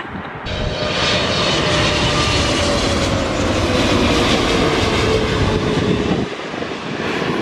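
Jet airliner passing low overhead on its approach to land, engine noise with a slowly falling whine. It starts abruptly about half a second in and cuts off about six seconds in.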